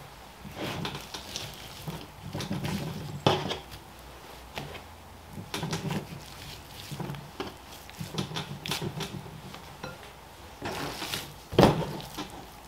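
Large curved butcher's knife slicing and scraping through fat on a beef chuck against a plastic cutting board, with soft knocks as the meat is handled. There is a sharper click about three seconds in and a louder knock near the end.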